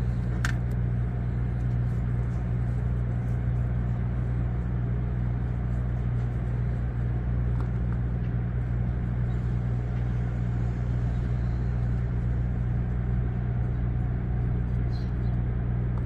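Steady low mechanical hum at an even level, with a couple of faint clicks or taps.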